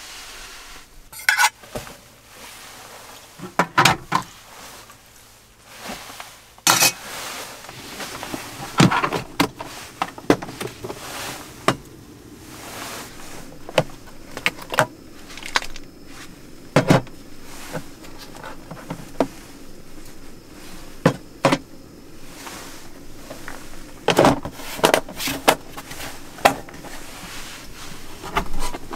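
A metal spoon scraping and clinking in a metal mess tin, then plastic spice jars and bottles knocked together and set down in a hard plastic case. Sharp clicks and taps come scattered throughout, with a run of them near the end, over a faint steady hum.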